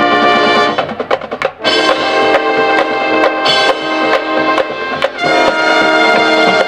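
Marching band brass playing loud held chords with percussion, broken by a run of sharp drum hits about a second in and a short break with a hit just after five seconds before a new chord.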